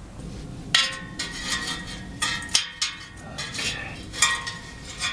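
Irregular metallic clinks and taps, several with a short ring, as metal clamps are worked around an exhaust pipe to fasten a sheet-metal heat shield.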